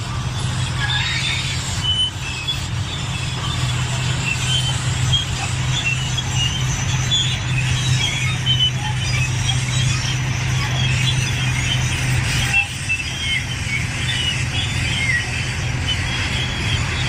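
Large crawler bulldozer working, its diesel engine running low and steady while the steel tracks give off many short, high squeals. The low engine hum drops away about three-quarters of the way through, while the squealing goes on.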